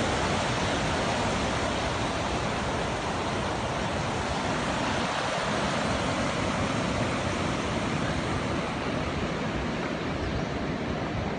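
River water rushing, a steady full rush.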